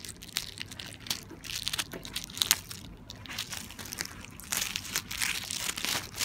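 Wet tape and plastic wrapping of a taped-up package crinkling and tearing as it is pulled open by gloved hands, a run of irregular crackles.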